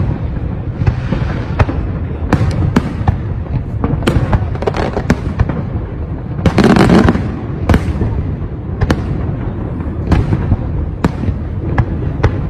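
Aerial firework shells bursting in a fireworks display: a rapid, irregular string of sharp bangs and crackles over a steady low rumble, with a louder, longer burst about halfway through.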